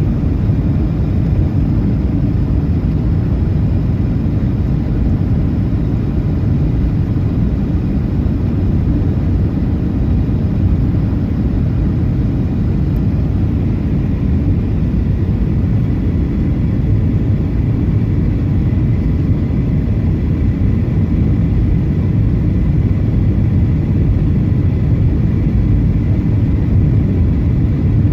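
Steady, low rumble of a jet airliner's engines and airflow inside the cabin at a window seat during the landing approach, flaps extended.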